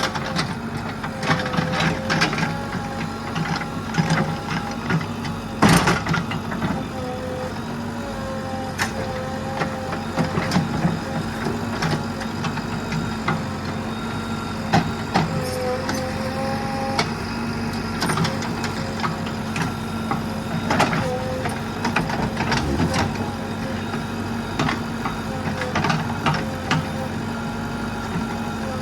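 A heavy machine's engine running steadily, with a wavering higher tone over the hum and frequent sharp knocks and clanks.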